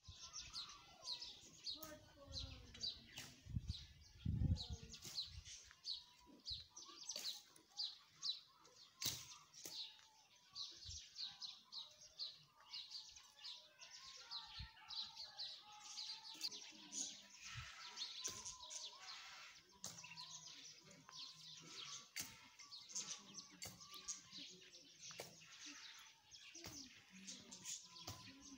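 Small birds chirping over and over in short high notes, faint, with a few low thumps around four seconds in.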